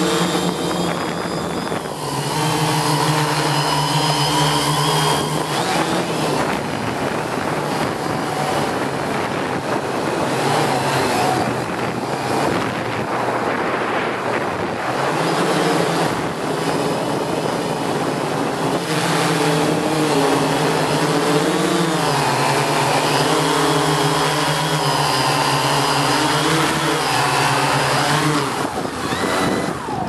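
Hexacopter drone's electric motors and propellers whining from on board, the pitch shifting up and down as the motors speed up and slow down while it flies and comes in to land.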